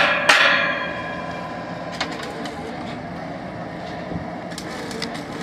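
One more ringing metal hammer blow just after the start, dying away over about a second. Then the borewell drilling rig's engine runs steadily, with a few faint clicks.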